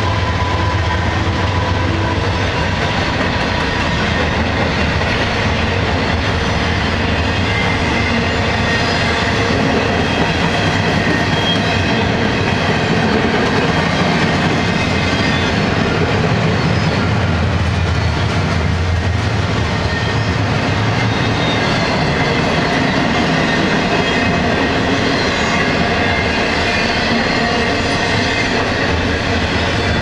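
Norfolk Southern double-stack intermodal freight train passing close by, at a steady loud level. The last GE Dash 9 diesel locomotives run past at the start, then the container well cars roll by with continuous wheel-on-rail noise, clickety-clack over the rail joints and thin, steady wheel squeal.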